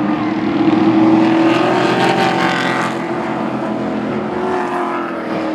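Engines of a pack of short-track Pro Truck race trucks running on the oval as they go by. The engine noise swells about a second in, peaks for a couple of seconds, then eases off.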